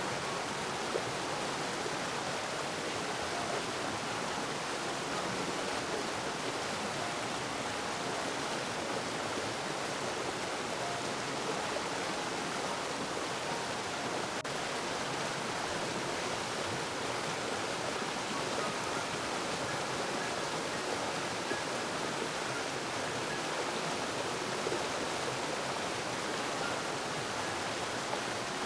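Flowing stream water: a steady, even rush with no breaks.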